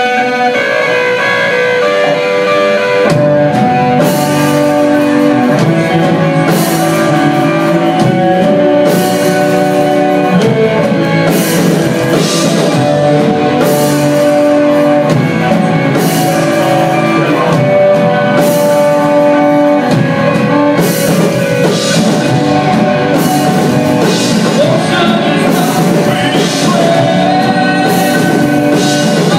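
A metalcore band playing live, with electric guitars and vocals. Guitar rings on its own for about three seconds, then the drums and bass come in with the full band, cymbals crashing every couple of seconds.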